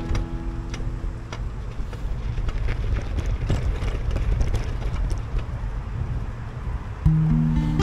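Low, even rumble of wind and travel noise on the microphone, with scattered light clicks. A new song with strummed acoustic guitar cuts in loudly about seven seconds in.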